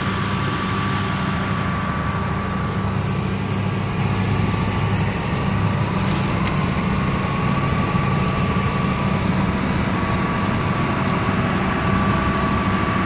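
Heavy diesel engine of a concrete pump truck running steadily at a concrete pour: a low drone with a thin, steady whine above it.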